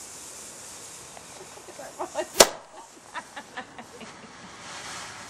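A firework burning with a steady hiss as it throws out sparks, then one sharp bang about two and a half seconds in, followed by a quick run of smaller cracks.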